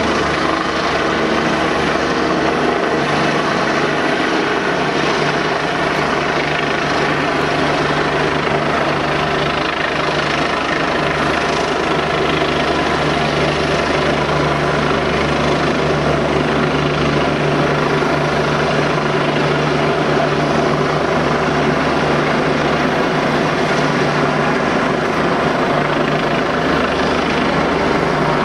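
Rescue helicopter flying low, its rotor and engine making a steady, loud drone with a constant low hum.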